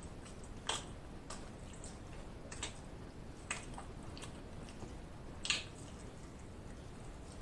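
Close-miked mouth sounds of a person eating a chicken wing: a handful of short, wet chewing and lip-smacking clicks spread out, the loudest about five and a half seconds in, over a low steady hiss.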